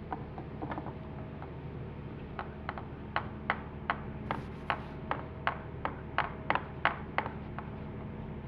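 A run of sharp clicks, about three a second for some five seconds, over a steady machine hum.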